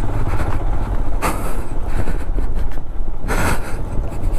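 A motorcycle engine running with a steady low rumble, with three short bursts of rushing noise across it, the first near the start, one about a second in and one past three seconds.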